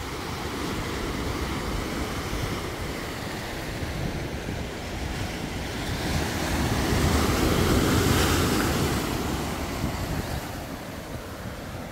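Sea surf washing against a rocky shore, with wind on the microphone. One wave swells to its loudest about eight seconds in, then fades.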